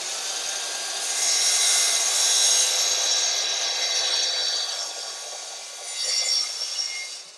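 Festool Kapex sliding mitre saw running with a motor whine and cutting through a wooden part, loudest about a second in as the blade goes through the wood, swelling again briefly near the end before the saw cuts off.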